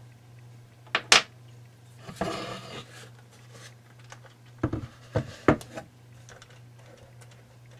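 Handling of a wall clock and its parts: a couple of sharp clicks about a second in, a short scraping rub, then three knocks near the middle, over a steady low hum.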